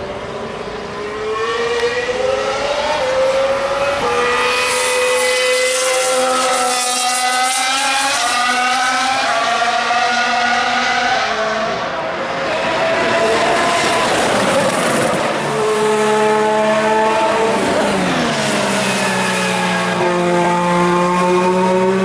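Formula One cars running past on track. The engine note climbs and drops back in steps through the gear changes. About halfway a car passes close in a brief rush of noise, and near the end another engine note falls and settles lower.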